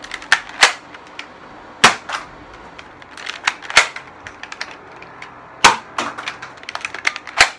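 Modified Buzz Bee Clash foam-dart pistol, rebuilt to fire as a shotgun, being primed and fired repeatedly: a string of sharp clacks and pops, about half a dozen loud ones with smaller clicks between.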